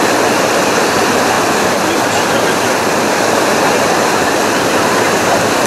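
Whitewater rapids rushing over rocks: a loud, steady rush of water with no let-up.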